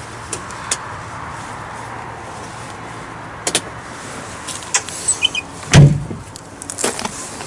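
Excavator cab door handled with a few clicks and knocks, then slammed shut with a loud heavy thud about six seconds in, over a steady low hum.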